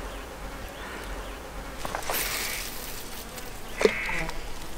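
Flying insects buzzing close by, with a single sharp click near the end.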